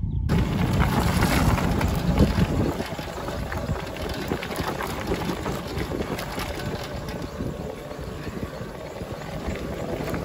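Wind rumbling on the microphone and tyres crunching over a gravel road while a cargo bike is ridden along it.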